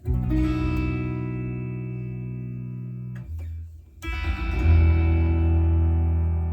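Strandberg Boden Essential 6 electric guitar on its bridge pickup, played through a Headrush Gigboard patch: a chord strummed and left to ring for about three seconds, then a second chord struck about four seconds in and left to ring.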